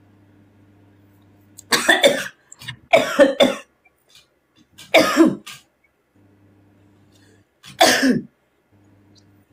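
A woman coughing hard in four short bouts spread across a few seconds, with a faint steady electrical hum in the gaps.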